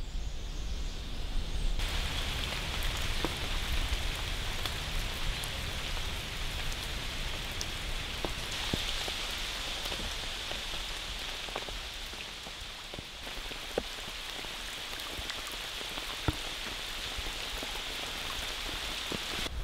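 Rain falling on a slow river's surface: a steady hiss with many scattered single drops plinking on the water. The hiss grows fuller about two seconds in.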